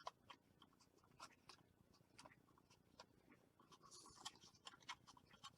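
Near silence with faint, scattered light clicks and taps, and a brief soft rustle about four seconds in, as small laser-cut wooden model pieces are handled and fitted together.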